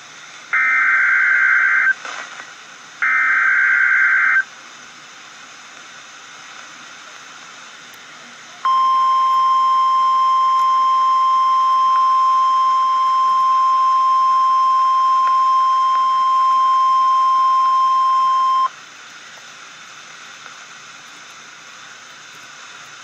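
NOAA Weather Radio emergency alert coming through a radio receiver over steady static hiss: two short bursts of digital SAME header data, each about a second and a half, then after a few seconds of hiss the 1050 Hz warning alarm tone, one steady high tone held for about ten seconds and cut off sharply. The tones mark the start of a severe thunderstorm watch broadcast.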